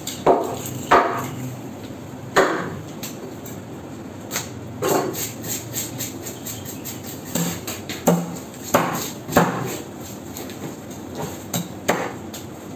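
Heavy knife chopping through a fish and knocking on a wooden cutting board: sharp knocks at uneven intervals, the loudest ones near the start and again a little past the middle, with softer cutting sounds between.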